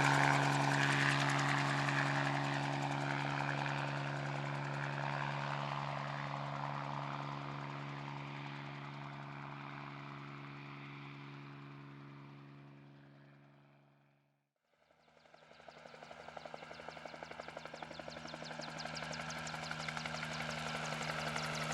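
Helicopter engine and rotor sound fading away to silence over about 14 seconds. After a short gap a second helicopter fades in and grows steadily louder, its rotor blades chopping rapidly.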